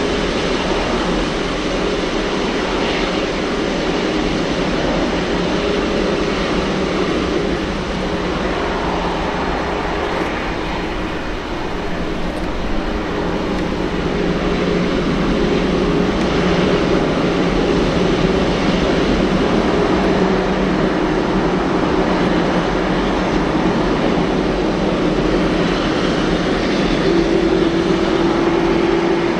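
Jet airliner engines running steadily, a constant loud rush with a low hum and a couple of steady tones that shift slightly and strengthen near the end.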